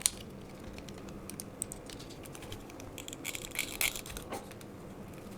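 Small plastic clicks and scraping from the internals of a Logitech G9 gaming mouse being pried and handled during disassembly: a sharp click at the start, scattered ticks, then a quick cluster of rattly clicks around three to four seconds in.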